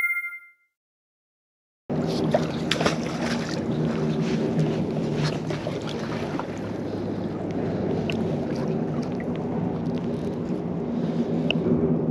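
A short ringing tone fades out, then about a second and a half of dead silence from an edit cut. After that, river water sloshing and lapping around a wader, with wind on the microphone and small splashes and clicks as a magnet fishing rope is thrown and hauled in.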